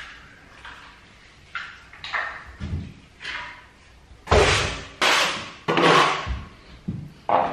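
Steel plastering trowel scraping wet plaster off a hawk and sweeping it across a wall: a run of short scraping strokes, some with a dull knock, the loudest about four to six seconds in.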